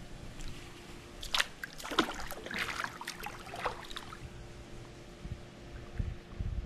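Bare feet wading and splashing on the shallow stone entry step of a swimming pool: a run of splashes and trickles between about one and four seconds in.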